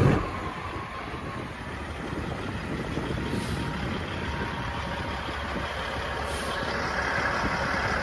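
Kenworth W900 semi truck's diesel engine running low as the truck rolls slowly past, with two short high hisses about three and a half and six seconds in.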